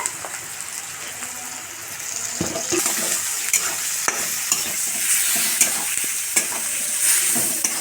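Onion and spices frying and sizzling in hot oil in a karahi while a spatula stirs and scrapes against the pan in short clicks. The sizzle gets louder about two and a half seconds in.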